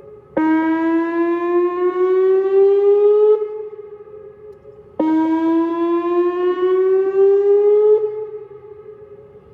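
Whelen WPS-2909 electronic outdoor warning siren sounding on its 435 Hz tone during a test. The tone cuts in loud twice, about half a second in and again at about five seconds. Each time its pitch climbs slowly before it fades away.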